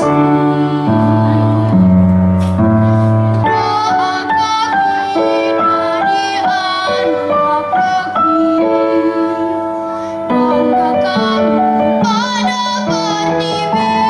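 A young girl singing a song into a microphone over an accompaniment of held chords.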